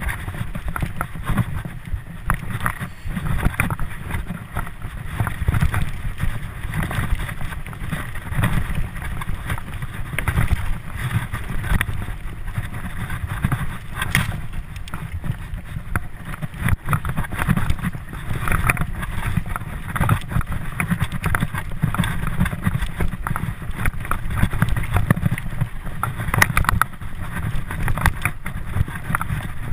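Mountain bike ridden fast over a dirt trail: a steady rumble of wind on the microphone and tyres on the ground, with frequent irregular knocks and rattles as the bike hits bumps.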